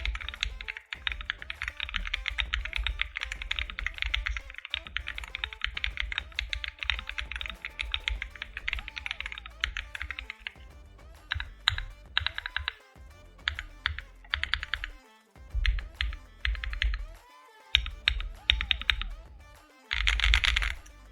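Typing on an aluminium gasket-mount MonsGeek M1 mechanical keyboard fitted with Akko V3 Cream Blue tactile switches and PBT keycaps: a fast, continuous run of key clacks for about ten seconds, then short clusters of rapid repeated presses with pauses between them as the stabilized long keys are tested. Background music plays underneath.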